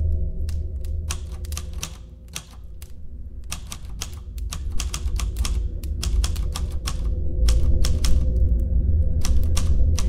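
Manual portable typewriter keys clacking in quick, irregular runs of typing, over a low droning music bed.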